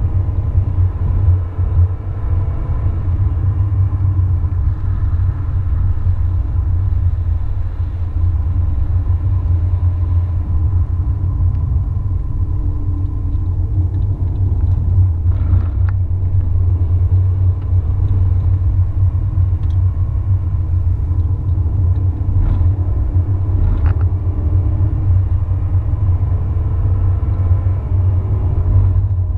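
A car driving at highway speed, heard from inside the cabin: a steady low rumble of road and engine noise, with a few faint clicks in the middle and later part.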